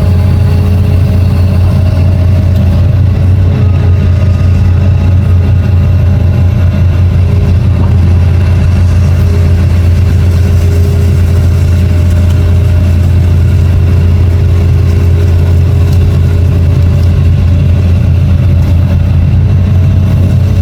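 Long-reach excavator's diesel engine running steadily, a constant deep drone with fainter higher tones that shift in pitch now and then.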